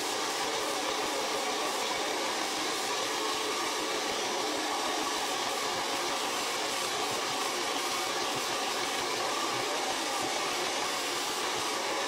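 Rusk blow dryer fitted with a concentrator nozzle, running steadily with an even, unbroken rush of air.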